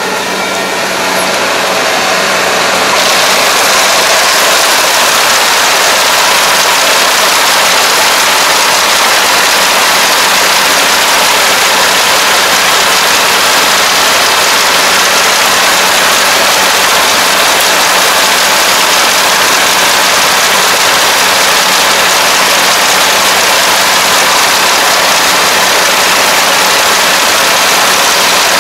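ANR460 rice combine harvester running steadily as it cuts and takes in flattened, lodged rice, a dense machinery roar over a steady engine hum. It grows louder about three seconds in, then holds steady.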